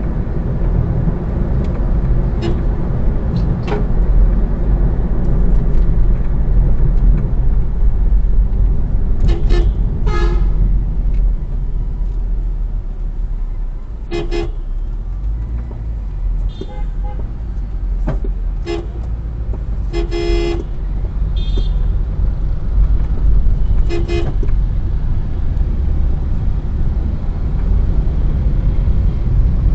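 Steady road and engine rumble heard from inside a car in city traffic. Vehicle horns give short toots several times, singly and in pairs, most of them in the middle stretch.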